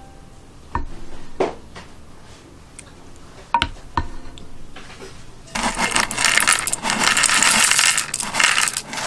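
Kitchenware clinking: four sharp clicks and knocks of glass or metal. About halfway through, a loud, continuous clattering noise starts and lasts around three and a half seconds.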